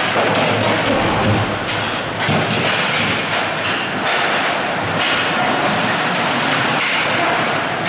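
Ice hockey play close by: skates scraping across the ice in a steady hiss, with scattered knocks and thuds of sticks, puck and players against the boards.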